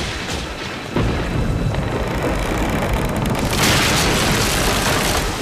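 Sound effect of a dam bursting: a sudden deep boom about a second in, then a loud, continuous rush of floodwater that turns hissier a little past halfway.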